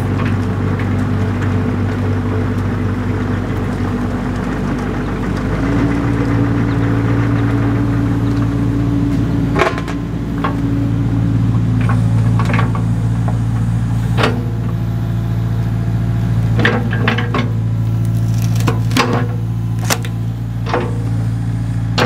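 Kubota KX057-4 compact excavator's diesel engine running steadily under hydraulic load, its note rising about five seconds in and easing back about twelve seconds in. Sharp metallic clanks and knocks from the machine working come often through the second half.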